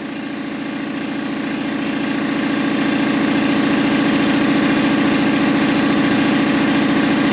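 An engine or motor running steadily, building up in loudness over the first couple of seconds and then holding an even, rumbling note.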